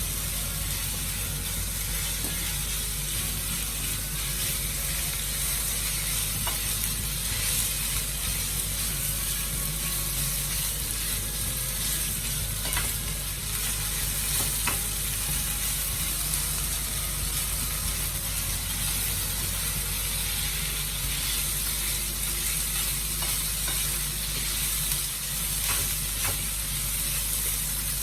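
Marinated pork pieces frying in hot oil with onion and garlic: a steady sizzle, with a few light clicks from stirring.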